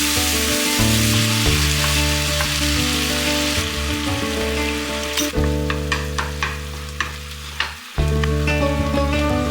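Food sizzling in a frying pan as it is stirred. The sizzle thins out about halfway through, leaving scattered sharp utensil clicks against the pan, over soft background music.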